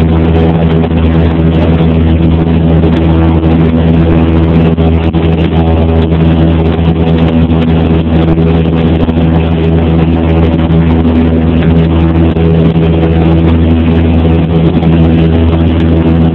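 Cessna 172P's four-cylinder Lycoming engine and propeller droning steadily at takeoff power during the climb-out, heard inside the cabin. The pitch holds even throughout.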